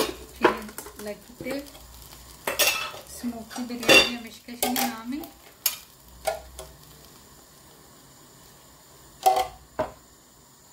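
Metal kitchen utensils clinking and knocking against a cooking pot: a run of sharp clinks in the first half, then a quieter stretch, and two short sharp knocks near the end.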